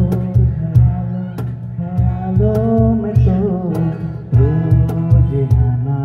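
Live acoustic music: an acoustic guitar and a man singing over a steady low beat of about two beats a second.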